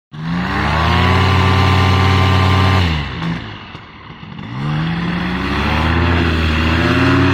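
Paramotor engine and propeller revving up and holding a steady high pitch, dropping back to a low idle about three seconds in, then revving up again and holding full power as the wing is pulled up for takeoff.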